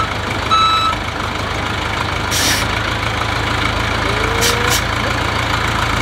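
XCMG WZ30-25 backhoe loader's diesel engine running steadily as the machine moves on the truck bed, its back-up alarm giving a last beep just after the start and then stopping. A short hiss comes about two and a half seconds in and two sharp clicks a little after the middle.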